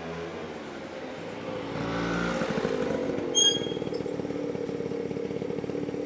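A vehicle engine running close by: its pitch falls at the start, rises about two seconds in, then settles into a steady, fast-pulsing run. A short high-pitched tone sounds once, about three and a half seconds in.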